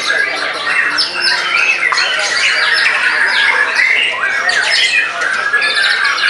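White-rumped shama (murai batu) singing a loud, continuous, fast and varied song, the notes crowding one another without a pause.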